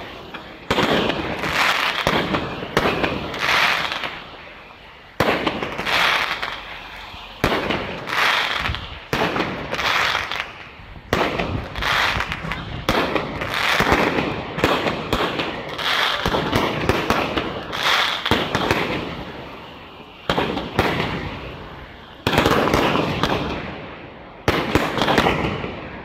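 Firework display: aerial shells going off one after another, a sharp bang every one to two seconds, each trailing off before the next.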